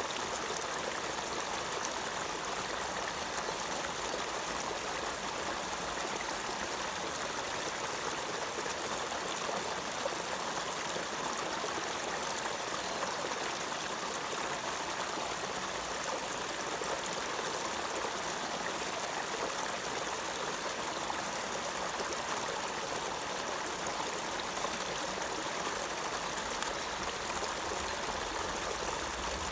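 Water running steadily in an even, unbroken rush, with no separate splashes or pauses.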